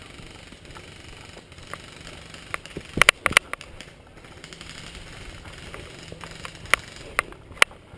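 Airsoft guns firing: a quick burst of four or five sharp shots about three seconds in, then three single shots spaced about half a second apart near the end.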